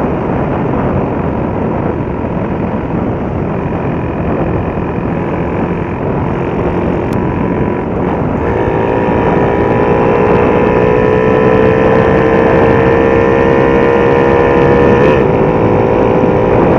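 Honda XRM Fi motorcycle with a 57 mm bore, ridden hard through a speed run, under heavy wind noise on the microphone. About halfway through, the engine note comes up clearly and climbs slowly as the bike gains speed, with a short blip a couple of seconds before the end.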